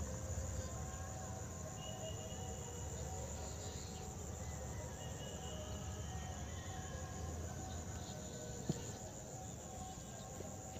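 Outdoor pond-side ambience: a steady high-pitched insect trill, as of crickets, over a low steady rumble, with a few faint short chirps.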